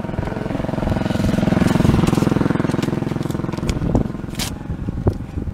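A small engine running steadily, growing louder to a peak about two seconds in and fading by about four seconds. A short sharp crackle follows soon after.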